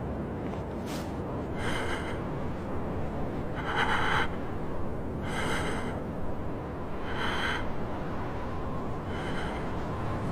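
A person breathing heavily, with a loud breath or gasp about every two seconds, over a steady low rumble.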